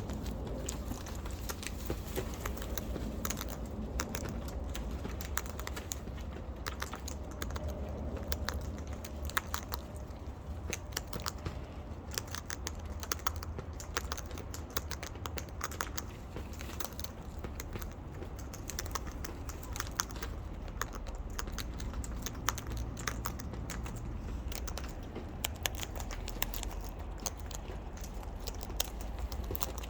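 Birds feeding: many quick, irregular clicks and cracks of beaks pecking and cracking peanuts and treats, over a steady low rumble.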